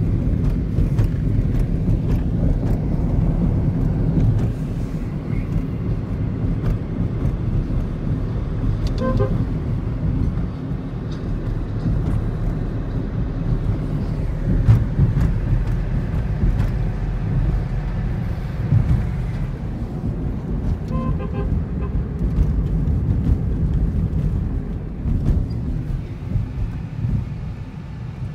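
A car driving at speed, heard from inside the car: a steady low rumble of road and wind noise. Brief vehicle horn toots come about 9 seconds in and again about 21 seconds in.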